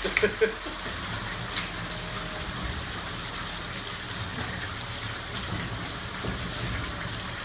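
Steady rain falling and pattering on surfaces, with a few short louder sounds right at the start.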